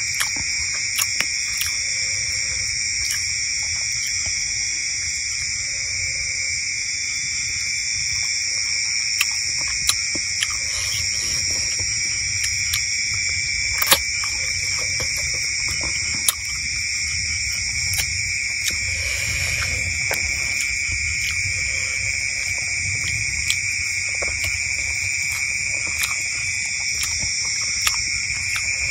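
Steady chorus of night insects, a constant high-pitched trilling at several pitches, with scattered small clicks.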